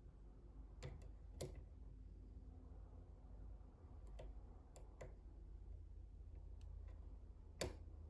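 Faint, scattered clicks of a small hook pick working the pins of a brass pin tumbler challenge lock. A few irregular ticks fall over a few seconds, with the sharpest click near the end, over a steady low hum.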